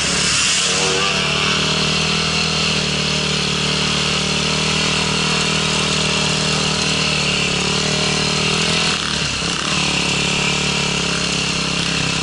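Dirt bike engine running steadily, heard from on board the moving bike, with a high hiss over it; the engine note drops briefly about nine seconds in as the bike slows.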